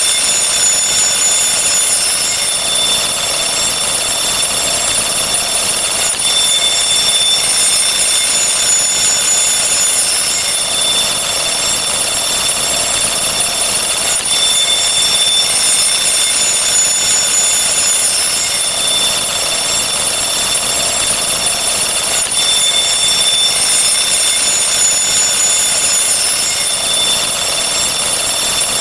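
Dense electronic counting sound effects repeating far too fast to separate, blurring into a steady high ringing over a hiss. Some of the high tones brighten and fade every few seconds.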